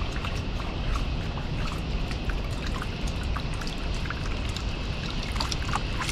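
Water pouring and trickling over chopped beef heart as it is rinsed of clotted blood, with many small splashes and drips.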